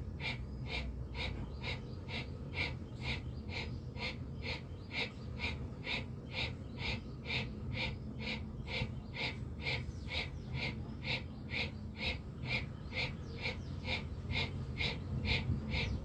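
Bhastrika pranayama (bellows breath): forceful, rapid breaths through the nose with the mouth closed, in an even rhythm of about two and a half strokes a second. A steady low rumble sits underneath.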